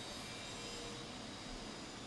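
Steady, faint drone of building work going on elsewhere in the building, with no distinct knocks.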